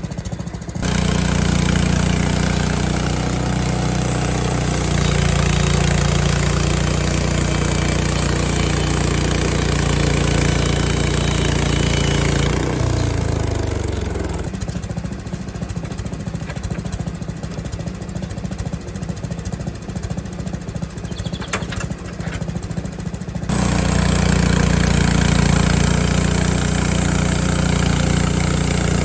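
Frontier OS23 portable sawmill's gas engine. It throttles up to a steady high speed about a second in. Around twelve seconds in it winds down, its pitch falling, to a pulsing idle for about nine seconds, then throttles back up to full speed near the end.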